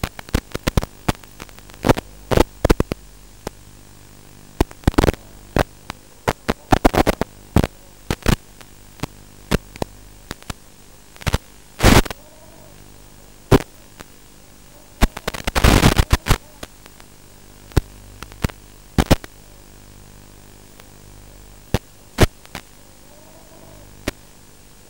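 Audio channel of an analog FPV video link: a steady low electrical hum with irregular sharp crackles and bursts of static, the longest about 12 and 16 seconds in, as the drone's radio signal breaks up.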